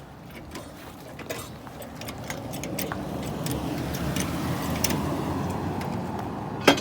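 A car jack being worked to raise the car higher, with scattered metallic clicks over a mechanical noise that grows louder, and one sharp clack near the end.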